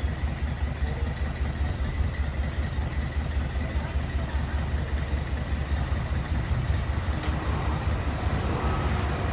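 A heavy machine's engine running steadily with a low, fast-pulsing rumble and a faint steady whine above it; two sharp clicks or knocks near the end.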